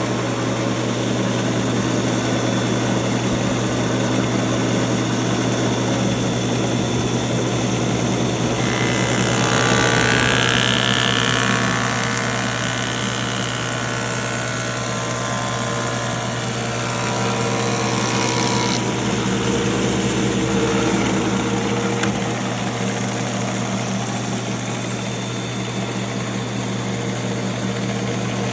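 Belsaw planer running with a steady hum, with a louder, higher-pitched stretch from about nine to nineteen seconds in.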